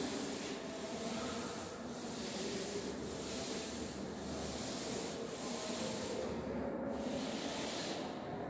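Blackboard duster rubbing across a chalkboard as the board is wiped clean, a scratchy rubbing in repeated strokes with brief breaks about once a second.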